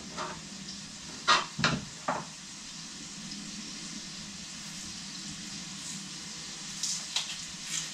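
Food sizzling gently in a frying pan. Three sharp knocks come a little after a second in, and a few light clicks near the end.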